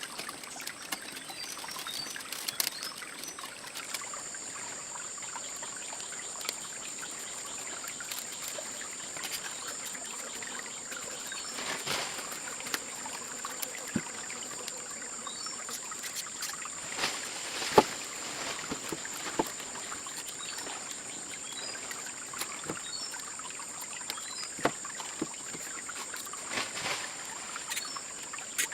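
Steady high-pitched insect drone with faint repeated chirps, under scattered light clicks and knocks, the sharpest a little past the middle.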